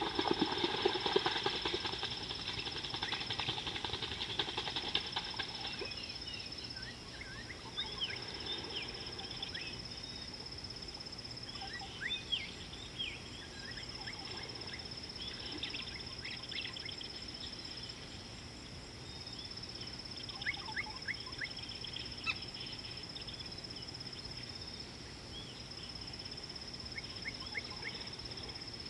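Wild birds chirping and calling, busiest in the first few seconds, with scattered quick chirps after that. Under them a steady high-pitched insect trill runs on, breaking off now and then.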